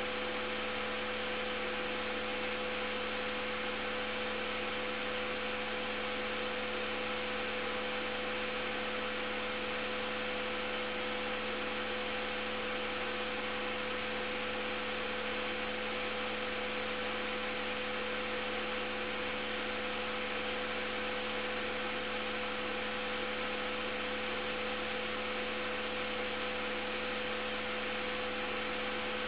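A steady, unchanging hum with two held tones over an even hiss.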